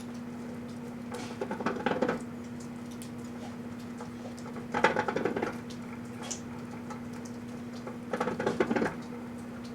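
Microwave oven running with a steady hum while a Hallmark Cupig singing plush toy burns inside, crackling in three bursts a few seconds apart.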